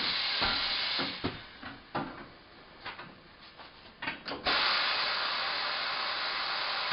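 A manual tire changer's bead-breaker being worked to loosen a tire's bead from the rim: several short knocks and scrapes of metal tool on tire. A steady hiss fills the rest, dropping away for about three seconds during the knocks.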